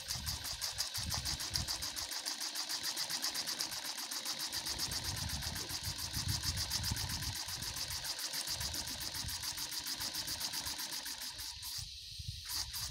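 Small 3D-printed steam engine running on steam, its exhaust hissing in quick, even puffs, about six or seven a second, with a brief break near the end.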